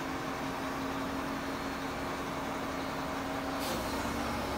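Kato rough-terrain crane running steadily during a lift, its engine and hydraulics giving a steady drone with a held tone that ends about three and a half seconds in.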